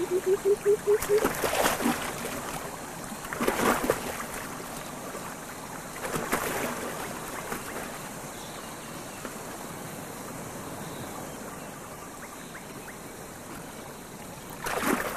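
River water running steadily, with splashes about a second and a half, four and six seconds in, and again near the end. A wavering, pulsing tone dies away in the first second.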